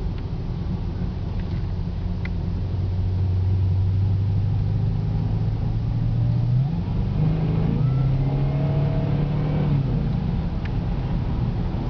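2009 Cadillac CTS-V's supercharged 6.2-litre V8 heard from inside the cabin while driving, over road noise. The engine note rises slowly and gets louder as the car accelerates, then changes abruptly about seven seconds in.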